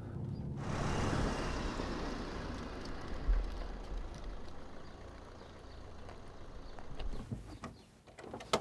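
A road vehicle driving past: a rush of tyre and engine noise that swells suddenly about half a second in and slowly fades over the following seconds, with a few short clicks near the end.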